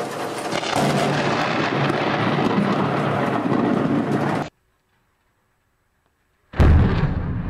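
Thunder rumbling through a heavy downpour after a nearby lightning strike, cutting off abruptly. About two seconds later comes a sudden, very loud thunderclap from a lightning bolt striking a building close by, followed by rain and wind noise.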